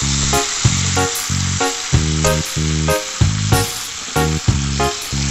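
Chicken curry sizzling in a frying pan, under background music with a steady beat.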